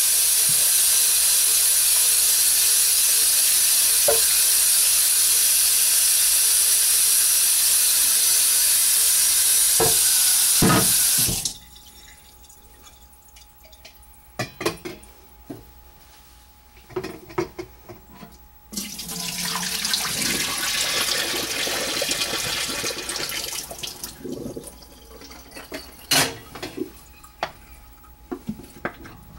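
Kitchen faucet running hard into the sink for about eleven seconds, then shut off abruptly, running cold water over freshly boiled chicken wings to cool them. A few scattered knocks follow, then the tap runs again more softly for about five seconds before more knocks near the end.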